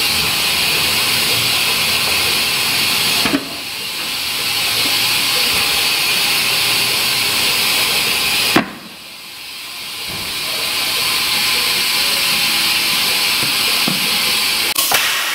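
Loud, steady compressed-air hiss from a pneumatic tire changer as a tire is worked onto a wheel. A sharp click about three seconds in and again past the middle each cuts the hiss down, after which it builds back up, and it stops with a couple of clicks at the end.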